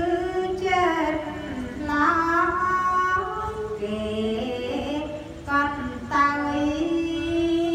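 Khmer smot, a Buddhist verse chanted in a melodic style: a single high voice holds long, wavering notes with curling ornaments, pausing briefly for breath twice.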